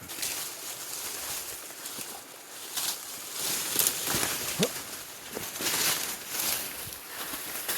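A person scrambling up a steep, debris-strewn slope: irregular rustling and crunching of leaves, brush and branches underfoot, with a short rising squeak about halfway through.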